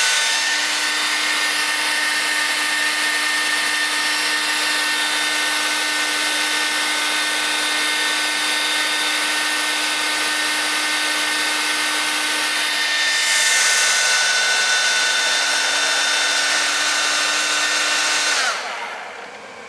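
Hair dryer running at its highest setting: a loud, steady blowing with a motor whine. It is switched off near the end and the motor winds down.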